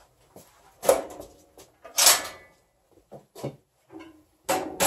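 Vents, doors and dampers of a Kitchen Queen wood cook stove being shut down: a series of metal clanks and scrapes. The loudest comes about two seconds in and another near the end, with lighter clicks between.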